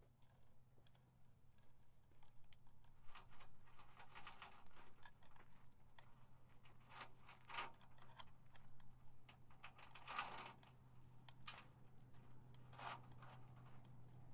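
Faint scattered rustles and clicks, in small clusters, over a low steady hum.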